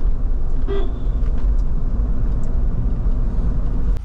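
Steady low rumble of a vehicle driving on the road, with one short horn toot about a second in. The rumble drops away abruptly at the very end.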